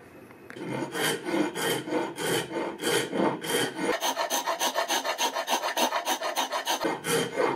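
Hand rasp scraped back and forth over an ebony and G10 knife-handle blank: scratchy rasping strokes in a steady rhythm. It starts about half a second in and quickens about four seconds in.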